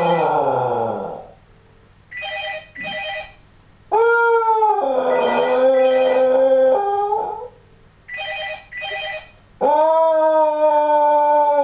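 Scottish Terrier howling, long wavering howls, set off by a ringing telephone. Three howls: one dies away about a second in, another runs from about four to seven seconds, a third starts near ten seconds. In the gaps the phone rings twice, each time as two short rings in quick succession.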